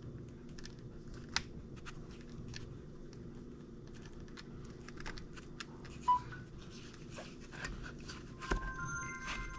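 Light clicks and taps of hard 3D-printed plastic parts being handled and pushed into place, over a steady low hum. A brief high tone sounds about six seconds in, and several thin tones sound near the end.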